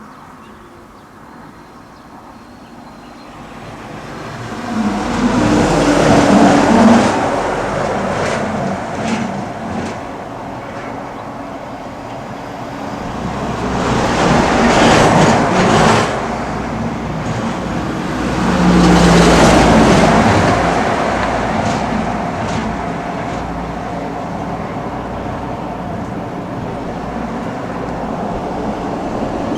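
Road traffic: three motor vehicles pass one after another, each engine-and-tyre rush swelling loud and fading away, about six, fifteen and nineteen seconds in. A steady traffic rumble carries on between them.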